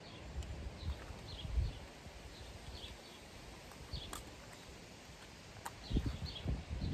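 Faint outdoor ambience: small birds chirping now and then, short high chirps about once a second, over uneven low rumbling that grows louder near the end.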